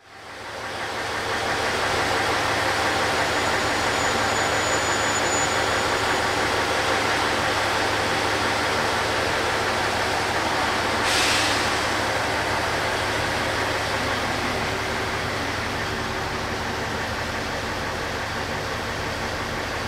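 KiHa 110-series diesel railcar idling at a station platform: a steady engine drone that fades in at the start, with one short hiss about eleven seconds in.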